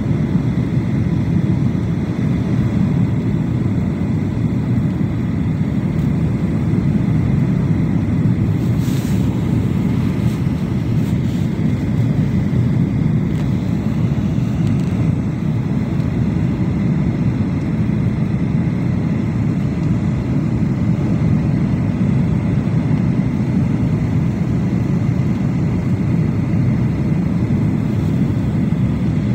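Jet airliner's engines and rushing airflow heard from inside the passenger cabin: a steady, loud low rumble with a faint high whine over it.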